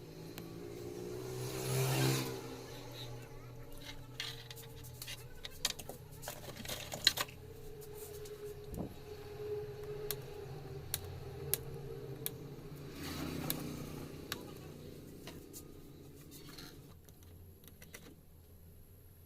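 Small tools and parts being handled at an electronics workbench during transistor replacement on an amplifier board: scattered light clicks and taps over a low steady hum. Two short swells of noise come about two seconds in and again near the middle.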